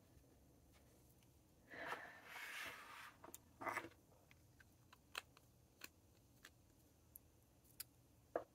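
Faint rustling and a few light clicks and taps as things on a desk are handled. There is a soft rustle about two seconds in, a short scrape near the middle, and then scattered small clicks, all against near silence.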